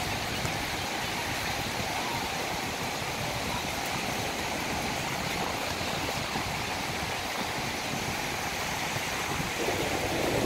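Black Sea waves breaking and washing up on a sandy beach: a steady rushing noise that grows a little louder near the end.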